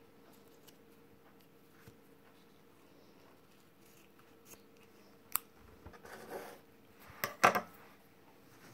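Scissors cutting off ribbon ends: a few short, sharp snips and clicks in the second half, after a quiet start.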